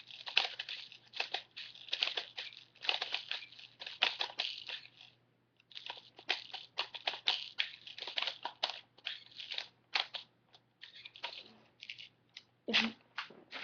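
Airsoft BBs and a plastic airsoft magazine being handled while reloading: a dense, irregular rattling and clicking, pausing briefly about halfway through.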